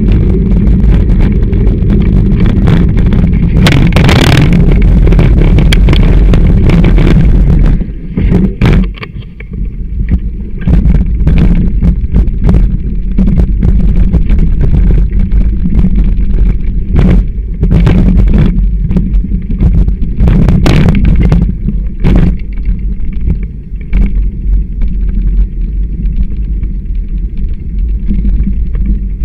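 Bicycle ride heard through a handlebar-mounted camera: a loud, steady low rumble of vibration and wind on the microphone, with many sharp knocks and rattles from the camera mount jolting over bumps. The rumble dips for a moment about eight seconds in.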